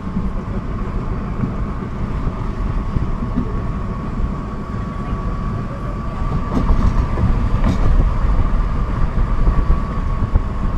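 Steady low rumble of a moving car, road and wind noise heard from inside the cabin, with a thin steady whine and the level swelling slightly about halfway through.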